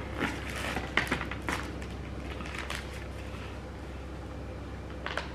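Handling noise from packing a cardboard shipping box: a run of short clicks, taps and rustles in the first few seconds, quieter for a while, then a couple more clicks near the end, over a steady low hum.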